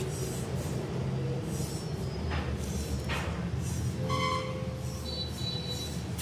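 HRX mountain bike being ridden: a steady low rumble from the rolling tyres and drivetrain, with a few short hissing scrapes and a brief high squeal about four seconds in.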